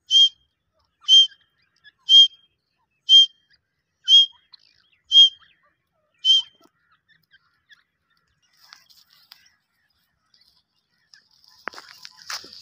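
Caged decoy francolin (teetar) calling: seven short, sharp, high notes at about one a second, stopping a little past halfway. Near the end, rustling and snapping of dry brush.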